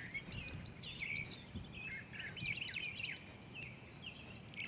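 Outdoor background of birds chirping and twittering, many short calls overlapping, over a faint low rumble.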